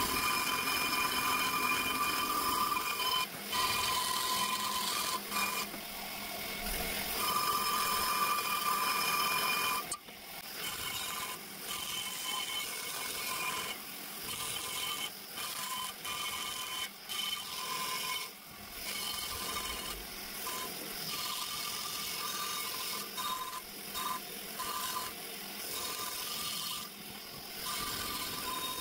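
Long-shank die grinder running at high speed with a steady whine as it grinds the aluminium walls of an RB26 cylinder head's exhaust port. After about ten seconds the whine keeps breaking off and coming back as the tool is eased on and off the metal.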